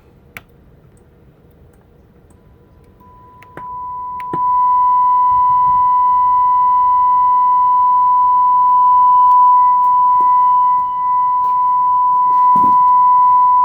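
Steady test tone from the Nordmende Caruso tube radio's loudspeaker. The radio is demodulating the signal generator's lightly FM-modulated 10.7 MHz alignment signal. The tone comes in faintly about two seconds in and climbs in steps to loud by about four seconds as the volume is turned up, then holds steady, with a few faint clicks.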